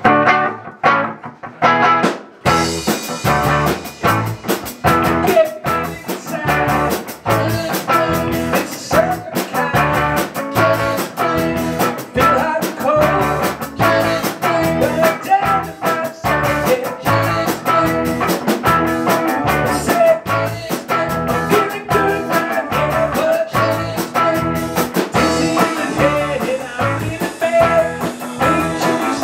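Live rock band playing: electric guitars, bass guitar and drums. A few guitar chords ring out on their own before the full band comes in about two and a half seconds in, with a steady drum beat from then on.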